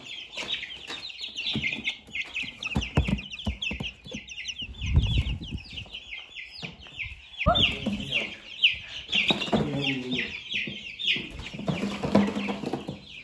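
A crowd of young chicks peeping nonstop, many short, high cheeps overlapping. Low thumps and rustles break in now and then.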